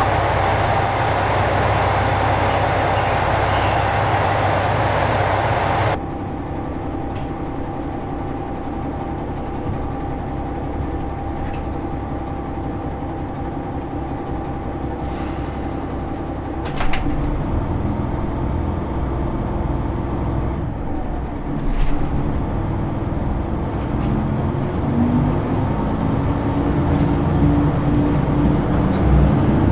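Train platform noise with a steady whine until a sudden drop about six seconds in. Then the low rumble of a JR Shikoku 2000 series diesel railcar's engine heard from inside the cabin, with a click partway through. The engine note rises and grows louder toward the end as it picks up power.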